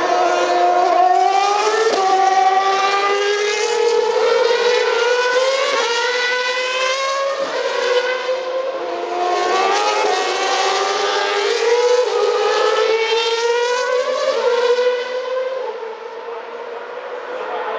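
2012 Formula One cars' 2.4-litre V8 engines accelerating hard past the fence, the high engine note climbing through each gear and dropping back at every upshift, several times over as cars go by. The sound eases off near the end.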